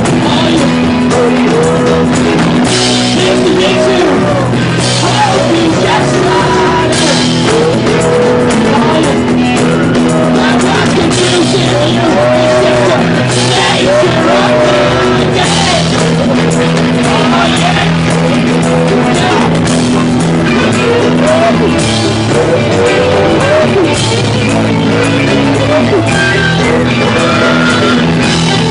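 Live rock band playing loudly: a male voice singing over electric guitar, bass guitar and drums.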